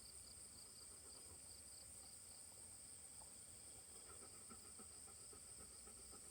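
Faint, steady chorus of insects trilling, such as crickets, with a high, even buzz and a softer pulsing trill beneath it.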